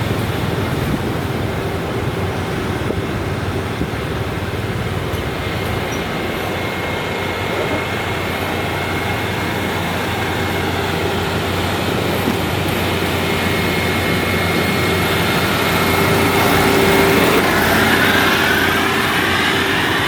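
Steady engine and road noise on the move, following a WD102PRO rice combine harvester driving along the road, with a faint steady whine. Near the end a few whines rise in pitch.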